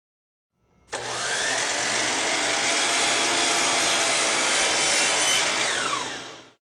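DEWALT miter saw cutting a 45-degree mitre through baseboard molding. The motor starts abruptly, rises in pitch and runs steadily through the cut, then winds down quickly near the end.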